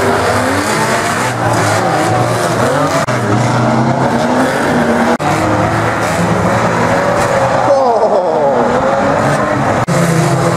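Several banger racing cars' engines running and revving on the track together, with some tyre squeal. About eight seconds in, one engine note sweeps down and back up.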